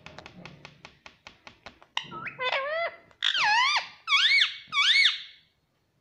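Indian ringneck parakeet calling: a fast run of short clicking notes for about two seconds, then four or five loud whistled squawks that dip and then rise in pitch.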